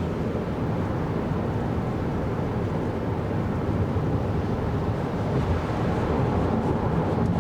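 Steady road and tyre rumble with wind noise heard inside the cabin of a moving 2024 Kia Carnival Hybrid minivan, getting a little louder over the last couple of seconds.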